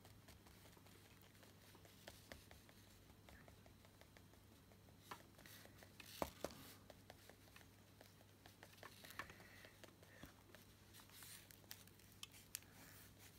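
Near silence: faint scratches and small taps of an encaustic wax stylus dabbing melted wax onto card, over a low steady hum.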